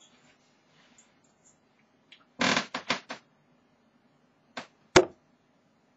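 Tungsten darts thudding into a dartboard: a quick cluster of knocks about two and a half seconds in, then a lighter knock and a single sharp, loud thud about five seconds in.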